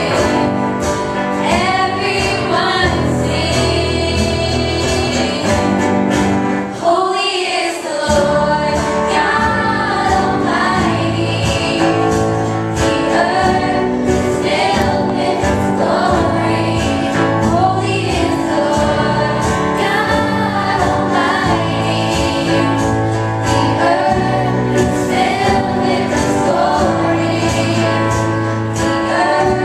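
Three girls singing together into microphones, backed by a live band with electric bass guitar and keyboard. The bass drops out for about a second around seven seconds in.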